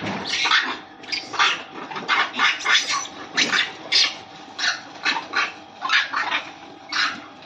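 A pack of dogs attacking a monkey: a run of short, sharp animal cries and yelps, about two a second, with no let-up.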